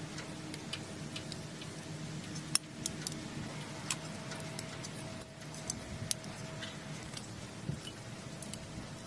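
Thin wire being wound by hand around a steel sword blade: irregular small metallic clicks and ticks as the wire catches and taps on the steel, over a steady low hum.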